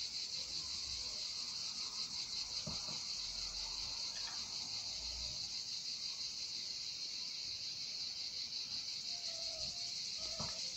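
Continuous high-pitched insect chirring, steady and even throughout. A few faint small clicks are heard over it, the sound of small metal fishing parts being handled.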